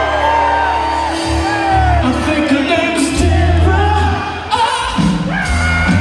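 Live band playing a slow soul-funk groove with a steady bass line, and high, sliding sung lines over it.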